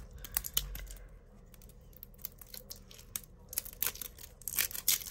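Thin plastic wrap being picked at and peeled off small hard plastic macaron-shaped cases, a scattering of small crinkles and ticks that grows denser and louder near the end.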